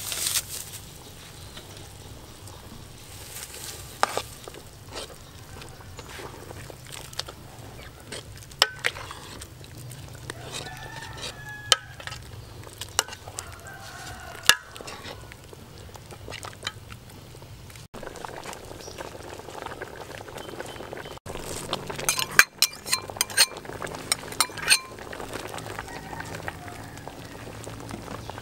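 A pot of soup simmering while a metal ladle stirs it, knocking and clinking against the aluminium pot with scattered sharp clicks. A quick run of knocks comes about four-fifths of the way in.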